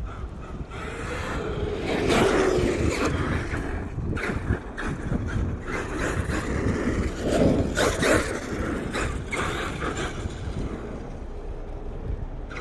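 Traxxas X-Maxx electric RC monster truck driving, its brushless motor whining up in two bursts, about two seconds in and again near eight seconds, with short clicks and scrabbling from the tyres.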